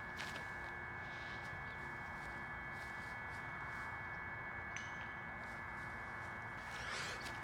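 A faint, steady high-pitched whine of several close tones held together, with a few soft clicks and a short rustle near the end.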